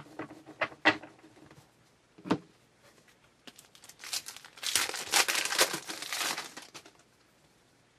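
A trading card pack's wrapper torn open and crinkled, with dense crinkling for about two and a half seconds in the second half, after a few light clicks and a single soft knock.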